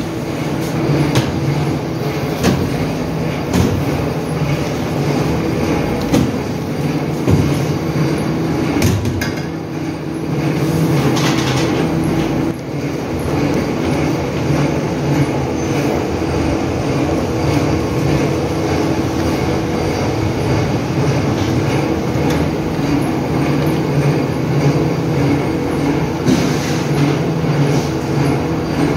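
Factory machinery running steadily: a loud, even droning hum with rattling and clatter, and scattered short knocks and scraping over it.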